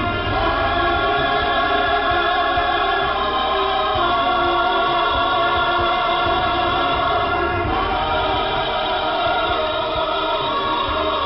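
Choral music heard through a shortwave radio receiver, thin and band-limited, with a noisy low end. The choir holds sustained chords that change every few seconds.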